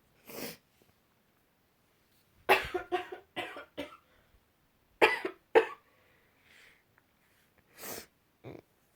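A person coughing: a quick run of four or five coughs, then two more sharp coughs, with softer breaths drawn before and after.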